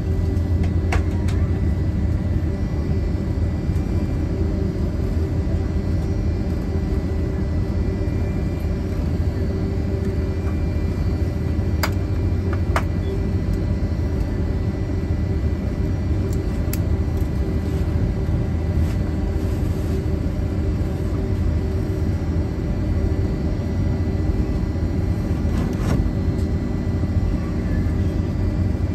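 Steady low rumble and hum inside the cabin of a Boeing 757-300 waiting at the gate, with a few faint clicks. No engine spool-up is heard.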